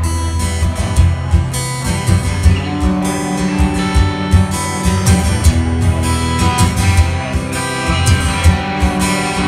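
Instrumental opening of a rock song: strummed guitars over bass and a steady drum beat, before the vocals come in.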